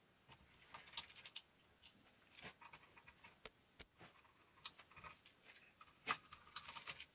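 Irregular faint clicks and ticks of a small screwdriver turning out screws from a graphics card's backplate, with the screws being lifted out.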